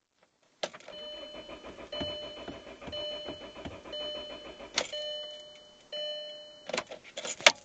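2003 Volkswagen Jetta 1.8T engine cranking on the starter without catching, a no-start. A chime repeats about once a second over it, and a few sharp clicks come near the end.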